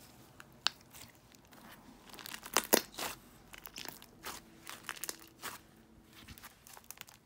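Thick slime being squeezed and pressed by hand, giving scattered crackly pops and clicks. The loudest cluster of pops comes about two and a half seconds in.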